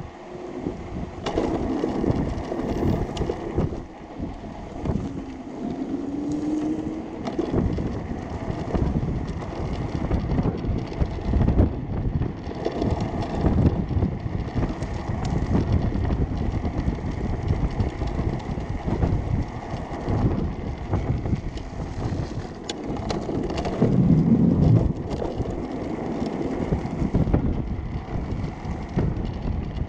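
Homemade electric go-kart rolling along an asphalt path on hoverboard hub-motor wheels: steady tyre rumble and wind buffeting the microphone, with a faint steady high whine underneath.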